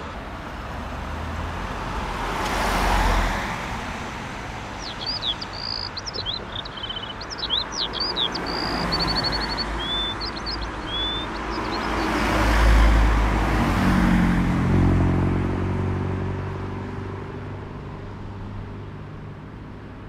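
Road vehicles passing, two of them swelling up and fading away, with a bird chirping a string of quick, varied notes in between. A steady low engine hum takes over in the last few seconds.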